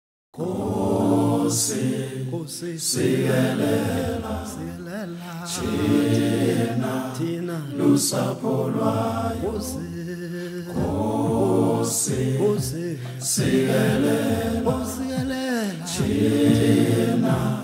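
A group of voices singing a chant-like a cappella choral piece, starting just after a moment of silence.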